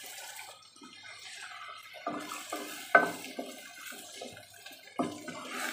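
Meat broth poured from a bowl into a pan of fried chili paste, then a wooden spatula stirring and scraping the watery sauce in the pan, with a sharp knock about three seconds in and another near the end.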